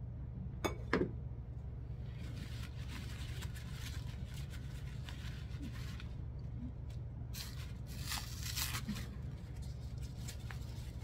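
Artificial flower stems and silk leaves rustling and scraping as a faux pumpkin pick is worked into the arrangement, with two sharp clicks about a second in and a louder rustle about three quarters of the way through. A steady low hum runs underneath.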